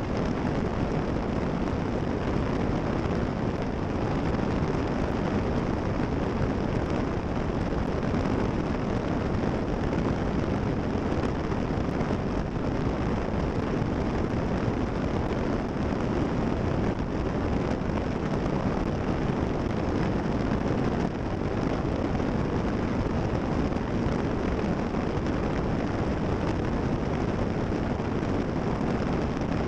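Steady rush of airflow over a GoPro mounted on the tail of a Cessna 340 in flight: an unbroken roar of wind noise on the microphone, even in level and without any change.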